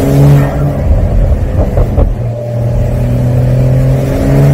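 Porsche 911 (992) 4S's twin-turbo flat-six engine and exhaust pulling under acceleration, its pitch rising steadily, with a brief break and a couple of sharp cracks about two seconds in before it climbs again. Heard from the driver's seat with the roof down.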